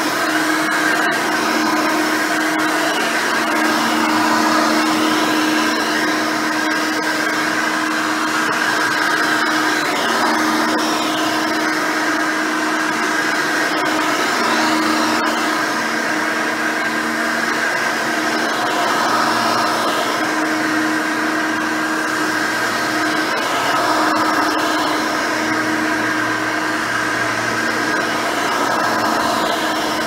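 Hoover Elite 600 upright vacuum running steadily as it is pushed over carpet: a constant motor-and-fan whine of several steady tones over rushing air. It has a 6-amp motor, a 9-blade fan and a brush roll sweeping the pile.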